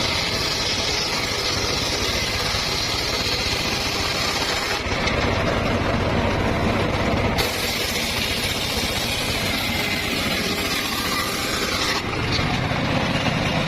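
Engine-driven homemade circular sawmill running, its blade cutting through a log with a steady high hiss over the engine's rumble. The hiss of the cut stops about five seconds in, comes back about two and a half seconds later, and stops again near the end while the engine keeps running.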